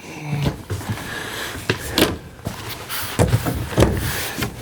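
A series of irregular knocks and thumps inside a small room, with rustling between them, typical of someone handling cabinet or wardrobe doors and moving about inside an RV.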